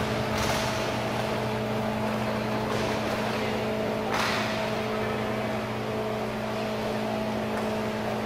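A steady machine hum, like large ventilation equipment, fills an indoor hockey rink, with a few brief swishes and scrapes of inline hockey play; the loudest swish comes about four seconds in.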